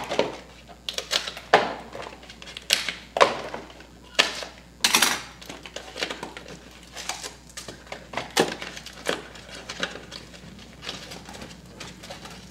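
Trading-card hobby box and foil packs being handled and torn open by hand: an irregular run of sharp rips, crinkles and cardboard knocks, the loudest about five seconds in.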